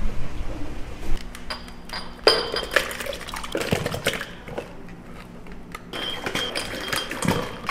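Kitchen clatter: dishes and utensils knocking and clinking, several clinks leaving a short ringing tone.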